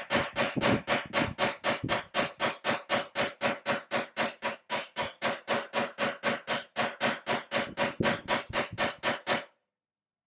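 Hammer rapidly striking a hand-held steel tool set against a forged steel dragon head held in a vise, steel on steel at about four to five even blows a second, each with a short metallic ring. The blows stop abruptly near the end.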